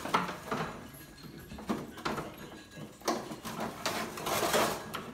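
Cordless drill driving screws through a faux brick wall panel into the wall in short bursts, with several sharp knocks as the panel is pressed and handled; the longest burst comes about four seconds in.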